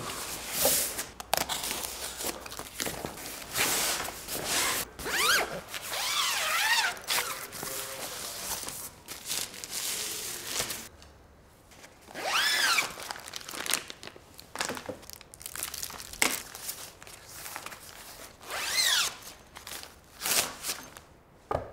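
Hands unboxing an LED tube light: a cardboard box sliding open, a plastic sleeve crinkling and a padded nylon carry case being handled, in irregular rustles and scrapes. A few quick rising-and-falling scraping sweeps stand out, about a third of the way in, past halfway, and near the end.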